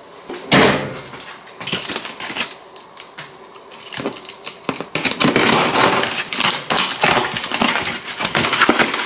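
Cardboard shipping box being handled and opened by hand: scraping, rubbing and rustling of the cardboard and its flaps, with a sharp scrape about half a second in and busier, denser rustling over the last few seconds.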